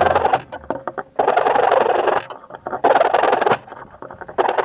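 Hand saw cutting wooden dowels: quick rasping strokes in short spells, about four of them, with brief pauses between cuts.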